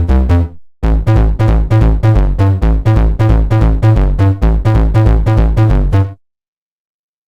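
Synth preset played from the Phenome soundfont player: a sequenced electronic pattern of short, punchy notes over a heavy bass line, about four notes a second. It breaks off briefly just after the start and stops abruptly about six seconds in.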